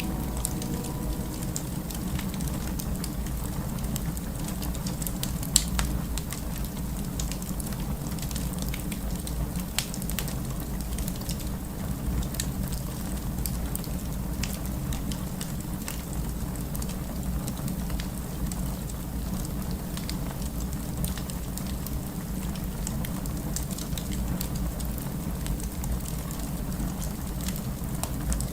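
Fire crackling in a fireplace: a steady low rumble of flames with scattered crackles throughout, and sharper pops about five and a half seconds in and again near ten seconds.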